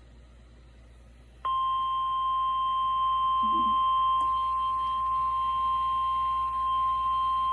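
Weather-radio warning alarm tone: a single steady tone near 1 kHz that starts suddenly about a second and a half in and holds without a break. It signals that a new warning is about to be read, here a severe thunderstorm warning.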